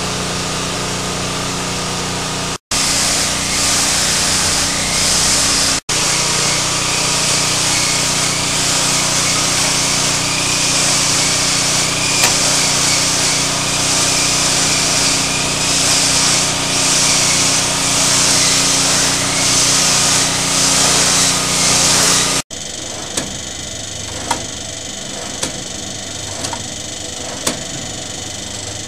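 Electric tempe chip slicing machine running, its motor and cutter making a steady mechanical noise that pulses about once a second. Near the end the sound changes suddenly to a quieter run with a light tick about once a second as tempe is fed down the feed tube onto the blade.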